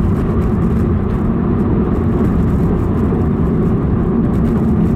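In-cabin engine and road noise of a Toyota 86/Subaru BRZ driving at moderate throttle, its warmed-up stock 2.0-litre flat-four running steadily.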